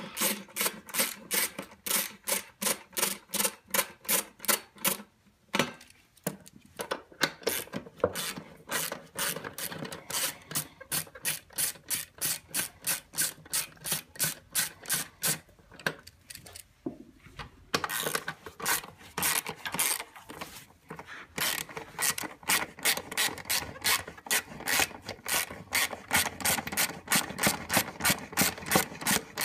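Hand ratchet clicking as it backs out 8 mm bolts, about three or four clicks a second, with a few short pauses.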